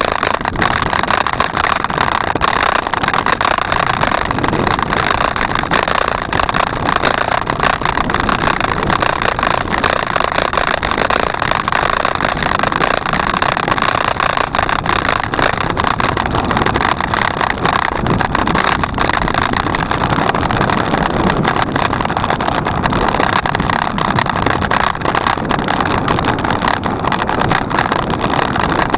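Wind rushing over the microphone and road rattle from a bicycle being ridden: a steady rushing noise dotted with many small knocks.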